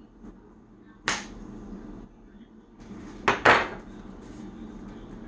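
Metal spoon knocking against the seam of a cardboard tube of refrigerated cinnamon roll dough to pop it open: one sharp knock about a second in, then two louder knocks in quick succession a little past three seconds.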